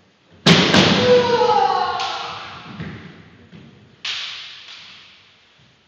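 Two sharp cracks of a kendo exchange in quick succession: bamboo shinai striking and a foot stamp on the wooden floor. A long kiai shout follows, falling in pitch and echoing in the sports hall. Another sudden shout or hit comes about four seconds in and fades.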